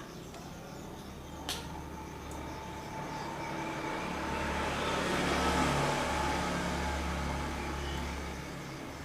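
A road vehicle passing by: its noise swells to a peak about halfway through and fades away over a low steady hum. There is a single sharp click about one and a half seconds in.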